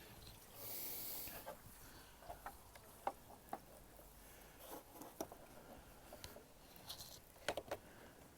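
Faint scattered clicks and scrapes of a small flathead screwdriver working at the edge of a plastic wiring connector to unlatch it, with a short hiss about a second in.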